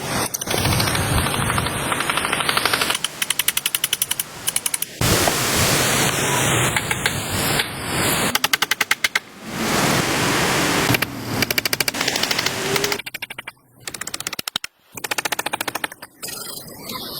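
Bursts of rapid, evenly spaced mechanical rattling, several seconds each with short breaks between, over a steady hiss.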